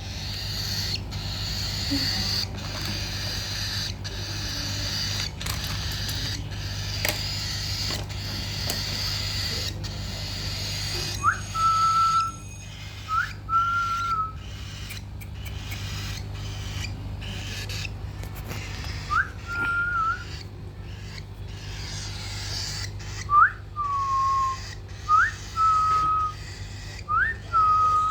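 Six short whistled notes, each a quick upward slide into a held tone about half a second long, coming singly and in pairs. Scattered clicks and a steady low hum run underneath.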